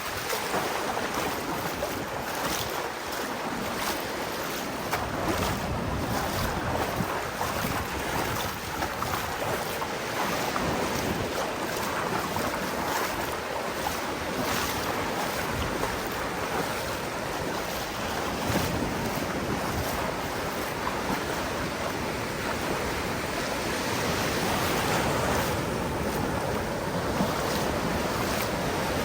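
Surf breaking and washing continuously on a sandy beach, with wind buffeting the microphone.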